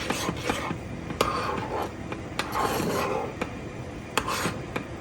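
Kitchen utensil scraping and rubbing against a dish or pot of freshly cooked baby food, with scattered light clinks and knocks.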